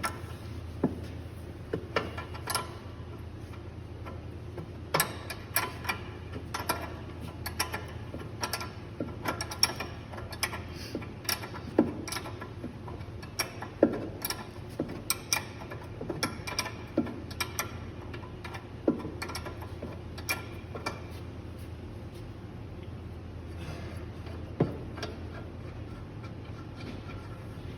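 Irregular metallic clicks and ticks, one every second or so, from a grease gun being worked to force grease into a Tesla Model S upper control arm ball joint, over a steady low hum.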